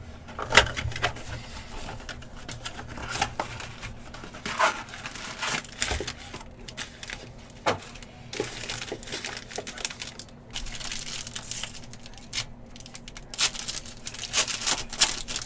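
Foil trading-card packs and the cardboard of a 2021 Panini Origins football box rustling and crinkling as the box is opened, the packs are spread out and one is torn open, with irregular sharp crinkles and clicks that are busiest near the end.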